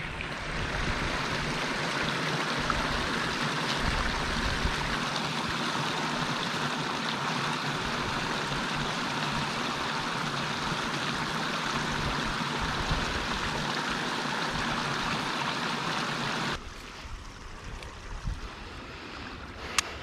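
Small creek waterfall pouring over a bank ledge into a pool: a steady rush of splashing water that cuts off suddenly near the end, leaving only a faint outdoor background.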